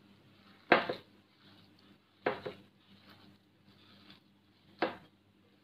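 Hands kneading a damp mix of cooked rice, coarse wheat flour and curd in a glass bowl: soft squishing with three short, sharp sounds as the hands press the mix against the glass, about a second in, about two and a half seconds in, and near the end.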